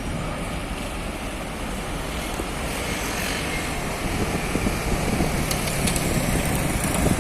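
Heavy diesel engine running steadily with a low rumble, getting a little louder about halfway through.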